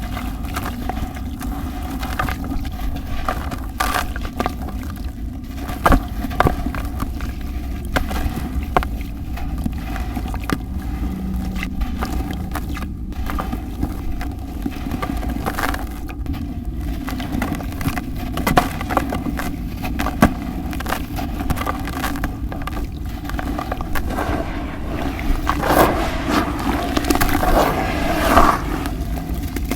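Chunks of cement floor being crumbled and crushed, giving frequent gritty crackles and sharp snaps over a steady low rumble. The crackling grows thicker and louder near the end.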